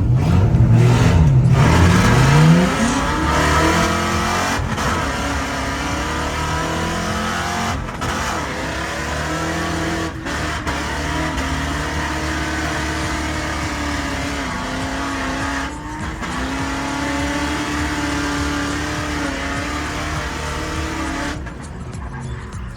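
Drift car engine revving hard, its pitch climbing over the first few seconds, then held at high revs with a wavering note and tyre squeal through a long slide. The sound breaks off abruptly a few times.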